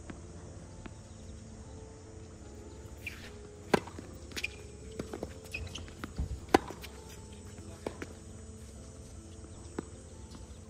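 Tennis balls struck by rackets and bouncing on a hard court during a rally: a string of sharp pops, a loud one nearly four seconds in and the loudest about six and a half seconds in, with fainter ones between, over a faint low rumble.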